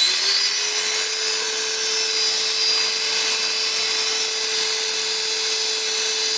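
Karcher K2 pressure washer's brushed electric motor, fitted with new carbon brushes, running on a test after the repair: it spins up to speed right at the start, then runs with a steady high whine and a hiss of brushes on the commutator. It runs properly, showing the worn brushes were the fault.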